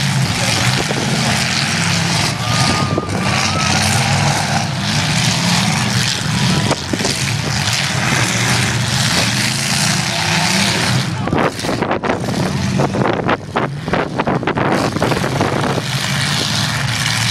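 Demolition derby cars' engines running and revving together, loud and continuous, with a run of sharp knocks and cracks between about eleven and fifteen seconds in.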